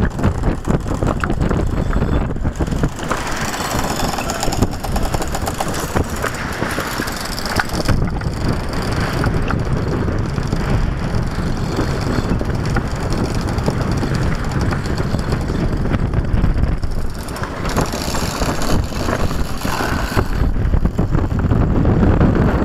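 Wind buffeting the microphone on a sailing yacht's deck, with sail canvas and rigging flapping and knocking irregularly throughout.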